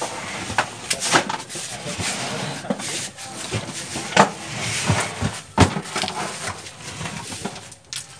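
Irregular knocks and clunks as a heavy metal-edged sound-system case is lifted and shifted by hand, with scraping between and two heavier thumps about four and five and a half seconds in. Low men's voices at times.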